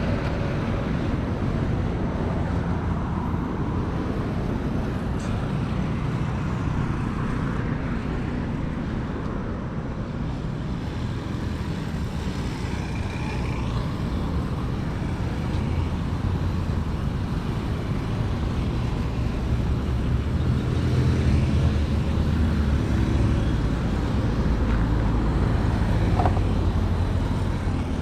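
Road traffic: a steady rumble of passing cars and trucks, getting louder for several seconds near the end as heavier vehicles pass close.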